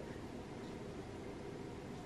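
Quiet room tone: a faint, steady background hiss with no distinct sound.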